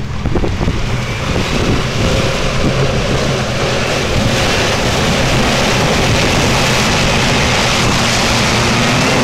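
Jeep Cherokee engine running hard under load as the truck churns through deep mud, with its tyres throwing mud.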